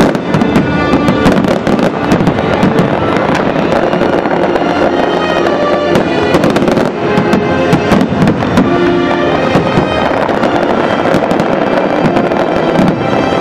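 Aerial fireworks shells bursting in quick succession, several bangs a second, over loud music.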